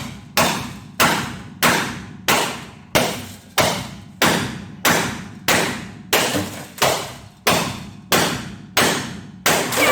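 A 3-pound sledgehammer striking out the last ceiling-panel rivets of a 2000 Blue Bird All American school bus. It lands a steady blow about every two-thirds of a second, each one ringing briefly through the metal.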